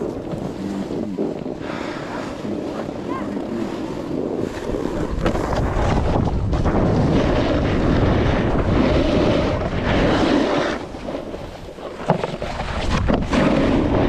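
Snowboard sliding and carving through snow with wind rushing over the microphone. It grows louder about five seconds in, drops briefly near eleven seconds, then picks up again after a sharp knock.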